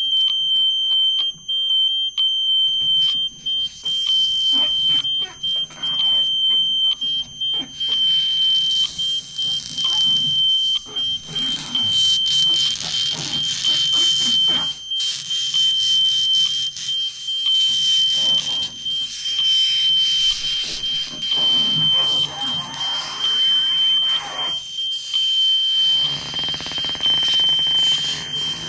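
Live experimental electronics: a steady, high-pitched alarm-like tone held throughout, over stuttering clicks, hiss and low rumbling noise. The hiss thickens about a quarter of the way in.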